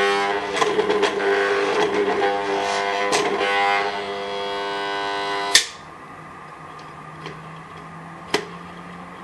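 Soviet-era electric juicer motor humming without turning, its rotor stuck as if something is holding it. The hum cuts off with a sharp click about five and a half seconds in; a fainter low hum stays, with one more click near the end.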